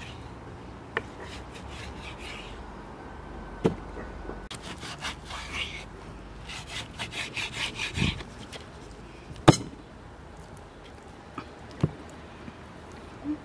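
Two runs of quick rasping strokes, about four or five a second, with several sharp knocks between them, the loudest about two-thirds of the way in.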